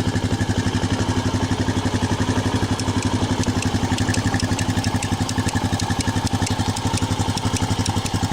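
Honda Foreman 500 ATV's single-cylinder four-stroke engine idling steadily with an even, rapid pulse.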